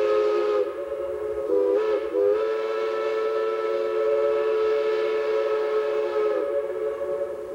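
Steam locomotive chime whistle sounding a chord of several tones: a long blast, a couple of brief breaks about two seconds in, then another long blast of about four seconds that sags slightly in pitch and fades near the end.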